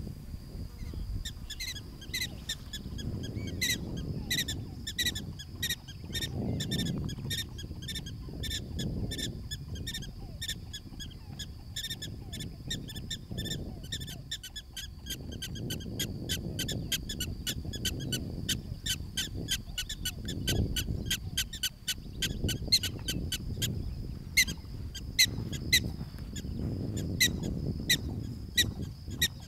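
Black-tailed prairie dogs barking in a rapid series of short, sharp calls, about three to five a second, the colony's repeated alarm call. Under the calls runs a low, gusting rumble.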